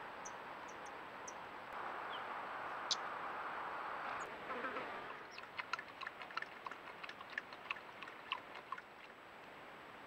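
Coyote lapping water from a pool: a quick run of short wet clicks, about four a second, for three to four seconds. Before it there is a steady hiss with a few faint high chirps and a brief rushing sound.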